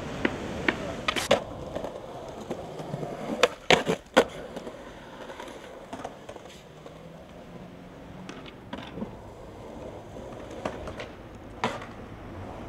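Skateboard wheels rolling on concrete, broken by sharp clacks and knocks of the board popping and landing; the loudest cluster of knocks comes about three and a half to four seconds in.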